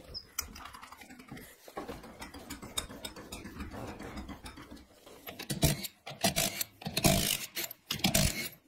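Cordless impact wrench removing a car wheel's lug nuts: several short rattling bursts, starting about halfway in. Before that there are only faint clicks.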